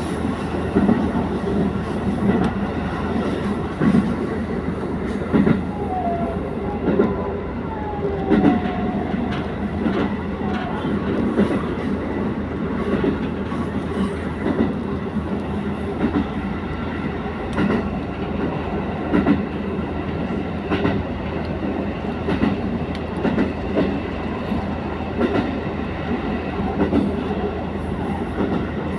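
Diesel train running along the Sekihoku Line track, heard on board: a steady rumble broken by clicks and thumps of the wheels over rail joints, with short wheel squeals a few seconds in.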